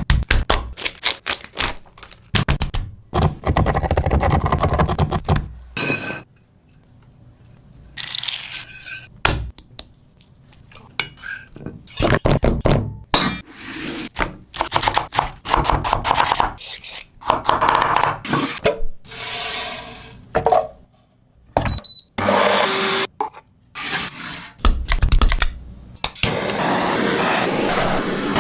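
Kitchen food-preparation sounds in short cut-together clips: knocks, scrapes and clatter of utensils and dishes, with a steady hiss near the end.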